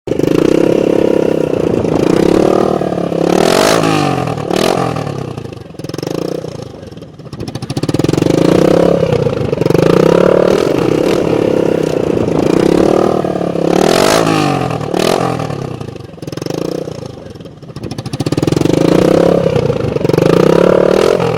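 Loud motorcycle engine being revved over and over, its pitch rising and falling every second or two, with several sharp exhaust pops and bangs between revs.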